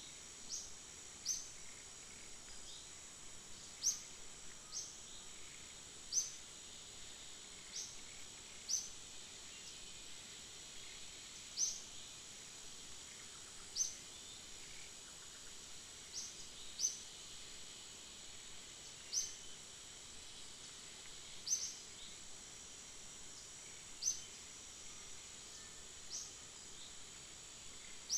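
Outdoor ambience: short high chirps from a bird, one every second or two, over a steady high-pitched drone of insects.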